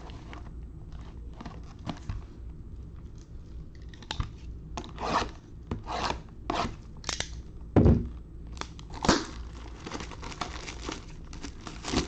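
Plastic shrink wrap being torn and crinkled off a sealed trading card box, in a run of sharp bursts starting about four seconds in. There is a loud thump partway through.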